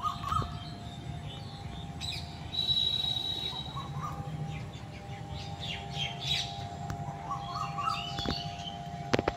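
Small birds chirping and twittering on and off, with one clear whistled note about three seconds in. A faint steady hum runs underneath, and a few sharp clicks come near the end.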